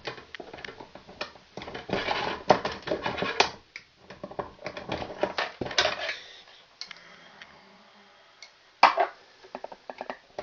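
Hand tools and stiff copper wires clicking, scraping and rattling as black wires are cut and stripped, busiest in the first six seconds, with one sharp knock near nine seconds in.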